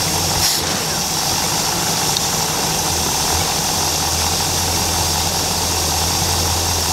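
Indmar 351 Ford V8 marine inboard engine idling steadily while its idle speed is being set, moving between about 650 and 800 rpm and settling near 650.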